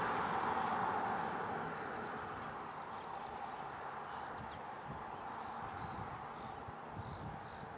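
Road and tyre noise from a car and a pack of road bikes moving away, fading steadily. About two seconds in, a faint rapid ticking lasts a couple of seconds.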